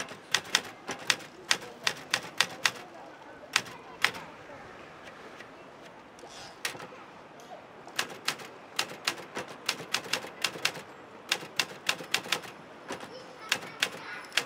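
Manual portable typewriter being typed on: runs of sharp key strikes, with a pause of a few seconds in the middle before the typing picks up again.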